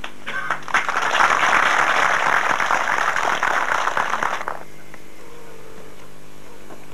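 A crowd applauding for about four seconds, then stopping, over a low steady hum.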